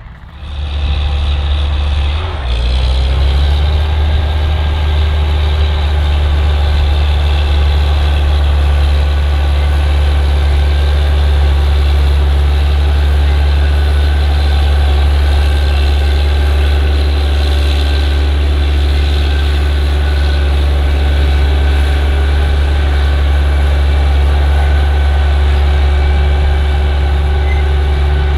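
Case IH Quadtrac tracked tractor's diesel engine working steadily under load as it pulls a cultivator through ploughed ground: a deep, steady drone that grows louder about two seconds in.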